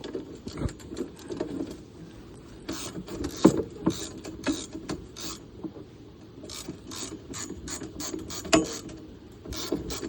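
Hand ratchet wrench clicking in short, irregular strokes as it works on a tight bumper bolt of the quad, with a couple of louder metal knocks.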